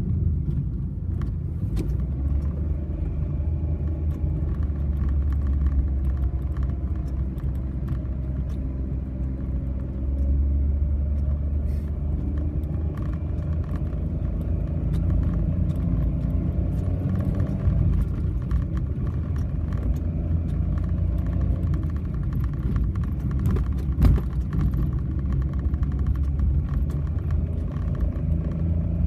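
Honda N-BOX's small three-cylinder engine and drivetrain running under load up a steep hill, with a steady low rumble whose engine tone slowly rises and falls, and scattered small clicks. A single sharp knock stands out late on. The car is being recorded for an unidentified abnormal noise.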